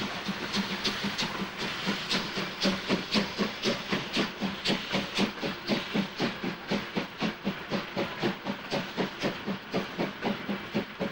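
DB class 23 steam locomotive 23 105, a two-cylinder 2-6-2, starting away with a train. Steam hisses at first, then the exhaust chuffs set in as an even beat that quickens from about two to over three beats a second as the locomotive picks up speed.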